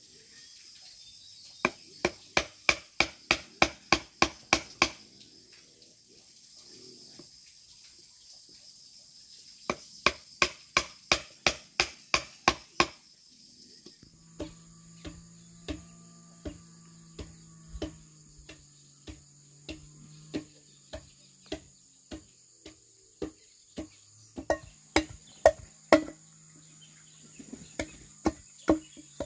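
Runs of quick blows on wood, about three to four a second, typical of hammering during furniture building. After a pause the blows go on more slowly and evenly. Insects chirr steadily throughout in the high range, and a low hum sits under the later blows.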